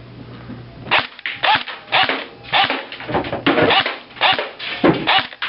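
G&G GR4 G26 airsoft electric rifle fired on semi-auto: about ten single shots, roughly two a second, starting about a second in, each a short sharp pop.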